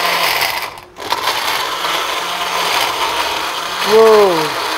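Countertop electric blender running steadily, cutting out for a moment about a second in and then running on. Near the end a person gives a short exclamation falling in pitch.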